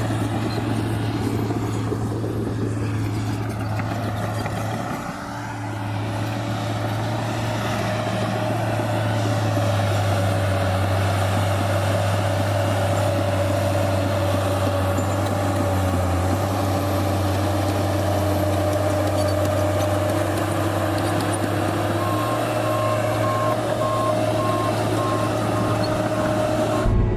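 Diesel engine of a New Holland D180C crawler dozer running steadily under work, heard from inside the cab, easing briefly about five seconds in. Near the end a reversing alarm starts beeping rapidly.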